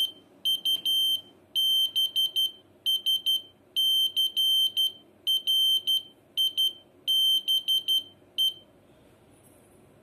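Buzzer driven by a Raspberry Pi sounding a Morse code message: short and long beeps of one high-pitched tone in groups, dots and dashes, stopping shortly before the end.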